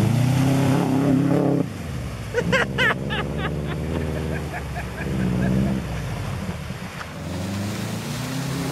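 Subaru Forester XT's turbocharged flat-four engine pulling hard as the car ploughs through a muddy water crossing, loudest for the first second and a half, then dropping suddenly to a quieter run under a hiss of splashing water. A few short high-pitched calls cut in briefly two to three seconds in.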